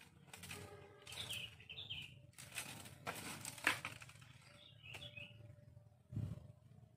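Dry twigs, bamboo litter and dead leaves crackling and rustling as someone pushes through dry brush, with a sharp snap just past the middle and a low thump near the end. Short bird chirps come twice, about a second in and again about five seconds in.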